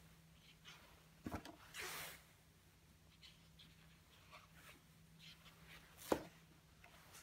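Large vinyl-on-fleece wallpaper sample sheets in a catalogue being turned by hand: the paper rustles and swishes, with a double knock a little over a second in and a sharper single knock about six seconds in as a heavy sheet lands.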